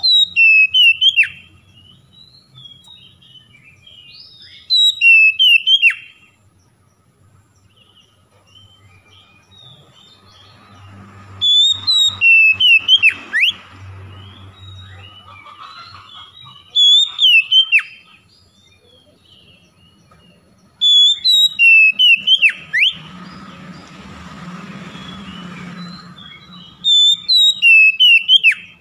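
Male Oriental magpie-robin singing: six loud phrases of sweet whistled notes that slide up and down, each one to two seconds long, coming every four to six seconds.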